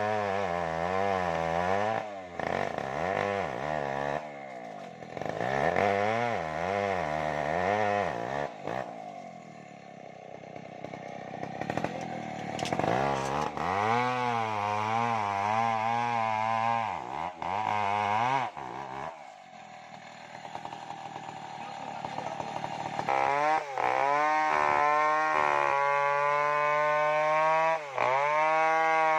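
Stihl MS070 two-stroke chainsaw cutting timber, its engine pitch rising and falling rapidly under load, easing off twice toward a lower speed, then held at a steady high rev near the end.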